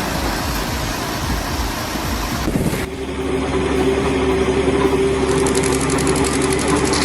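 Heavy machinery engine running under load, with a dense, noisy sound. About three seconds in it cuts abruptly to a steady engine drone with a held hum, and a fast, fine rattle joins near the end.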